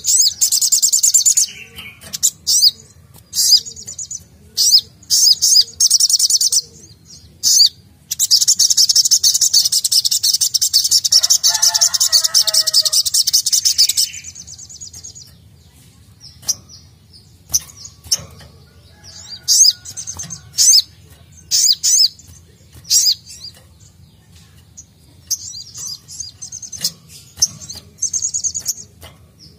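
Sogok ontong (sogon) sunbird singing: sharp high chirps in short bursts, then a fast unbroken trill lasting about six seconds before it drops back to scattered chirps.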